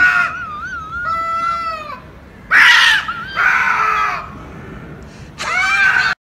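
Two domestic cats squaring off in a fight: long, wavering, drawn-out yowls, then three harsh screeches as one rears up and they swat at each other. The sound cuts off suddenly near the end.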